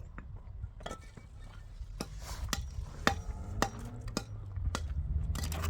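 Sharp knocks repeating evenly, about two a second, over a low steady hum.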